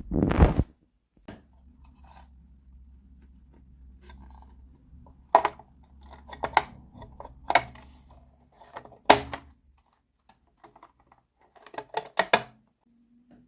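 Small plastic pieces of a miniature Hello Kitty toy kitchen set being handled, with single sharp clicks and taps spaced a second or so apart and a quick run of clicks near the end. A faint low hum sits under the first part and stops about two-thirds of the way in.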